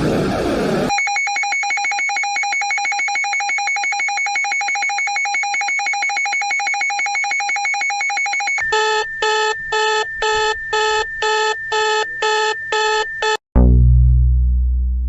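Synthetic electronic alarm tones in sequence. First comes a steady buzzing alarm tone, then about ten beeps at roughly two a second. A little over a second before the end it cuts abruptly to a loud, deep tone that fades away.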